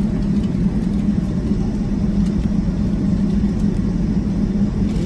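Steady low cabin rumble inside a Boeing 757-200 taxiing, with a constant hum: the engines at taxi power and the aircraft rolling along the taxiway.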